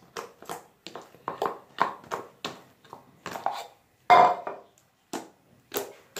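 Sticky homemade slime squelching and clicking in short, irregular bursts as it is squeezed and kneaded by hand, with a louder clunk about four seconds in as the bowl is moved.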